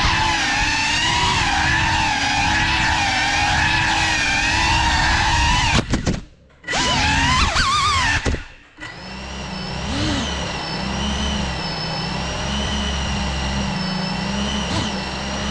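GEPRC CineLog35 cinewhoop FPV drone's motors and ducted propellers whining in flight, the pitch wavering with throttle. About six seconds in the whine drops out briefly twice, with quick rising glides between, and then settles into a steadier, lower hum.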